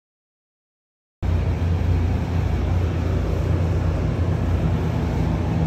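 About a second of dead silence, then a steady, loud, low mechanical hum cuts in abruptly and holds level.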